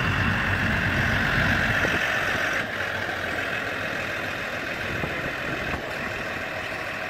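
A heavy engine running steadily at idle, a little louder for the first two and a half seconds.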